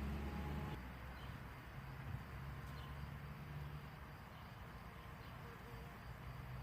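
Faint outdoor nature ambience with soft insect and bird sounds. A low rumble dies away less than a second in.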